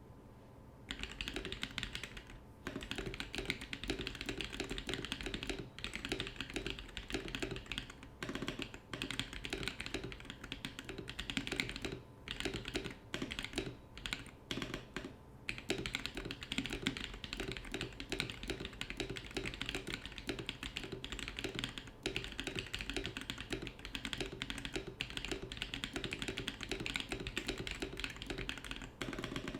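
Fast typing on a Gamakay K87 mechanical keyboard with lubed YOK Holy Panda tactile switches, the keystrokes clacking in rapid, continuous runs with a few brief pauses.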